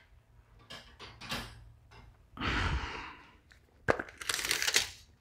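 Steel tape measure being handled: a short rushing sound, then a sharp click and a burst of rapid metallic clicking and rattling as the blade runs.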